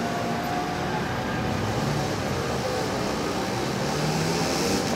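Farm tractor towing a long, loaded flatbed trailer past: the engine runs steadily under a wash of road noise, growing a little louder near the end.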